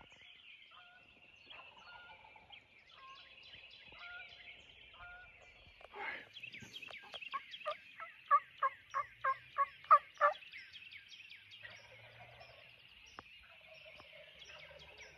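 Wild turkeys calling: a run of about ten loud notes, about three a second, partway through, with fainter calls before it. Songbirds sing behind them.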